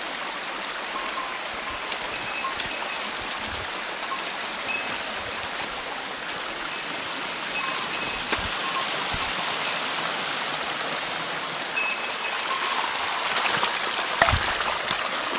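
Stream water flowing with a steady rushing hiss, with a few short clicks here and there.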